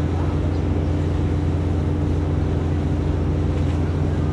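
Steady low drone of the diesel-driven hydraulic power unit that runs a Giken Silent Piler sheet pile press, holding an even pitch throughout.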